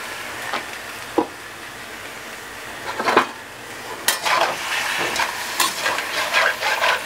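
Beer and water sizzling around halved potatoes in a hot wok, with a few single light knocks. From about four seconds in, a slotted spatula scrapes and stirs the potatoes against the wok in a run of quick strokes.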